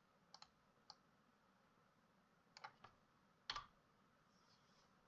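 A few faint, scattered computer keyboard clicks against near silence, in small groups, with the loudest about three and a half seconds in.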